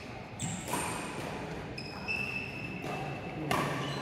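Badminton rally: sharp racket strikes on the shuttlecock, about three seconds apart, with short high squeaks of court shoes on the floor.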